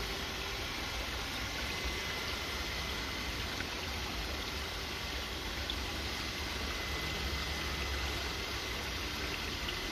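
Water running and trickling steadily through a chamber pond filter driven by its pump, on the filter's first start after winter, with a steady low hum underneath and a faint steady high tone.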